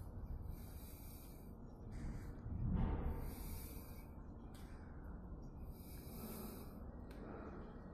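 Faint breathing close to the microphone, a soft hiss every two seconds or so over a low rumble, with one louder low puff about three seconds in.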